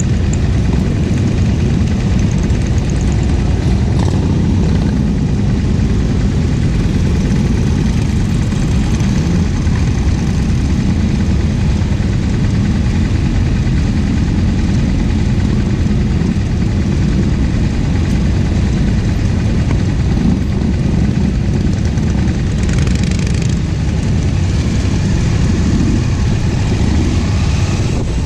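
Motorcycle engines running steadily: a sport bike idling close by while a line of touring and sport motorcycles rides past. There is a brief hissier surge about three-quarters of the way through.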